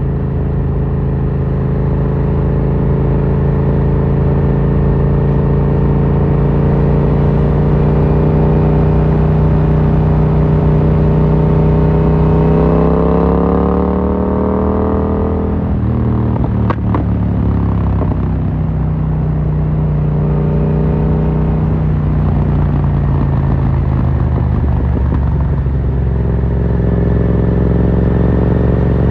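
A 2018 Yamaha MT-07's parallel-twin engine, breathing through an Akrapovic carbon full exhaust, runs at steady cruising revs, then climbs in pitch under acceleration a little under halfway through. The revs fall with a single sharp crack, then the engine settles back to cruising with small rises and falls in revs.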